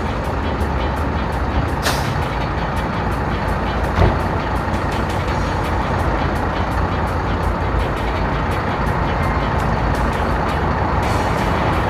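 Double-decker bus engine running as the bus pulls away, with a short air-brake hiss about two seconds in and a single knock about four seconds in.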